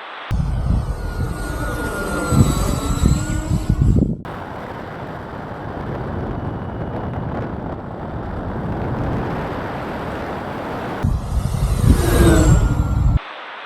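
Twin electric motors and propellers of a FlightLine P-38L Lightning RC model plane whining as it flies past twice, the pitch falling as it goes by, over a heavy low rumble. Between the passes there is a steadier stretch of flight noise.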